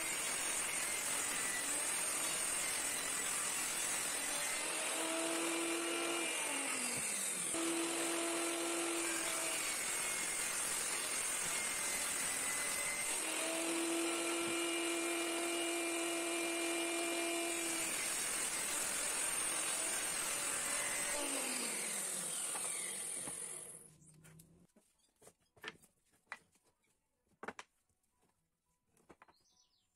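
Table saw running and cutting a wooden board, its pitch lines rising and dropping as the blade takes the wood, then winding down and stopping about three-quarters of the way through. After it stops, a few light knocks of the board being handled on the bench.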